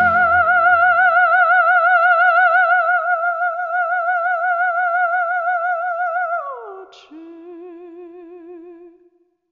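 Music: one long sustained note with a wide, even vibrato, held for about six seconds. It then slides quickly down to a lower wavering note that fades out, with a short click where it drops.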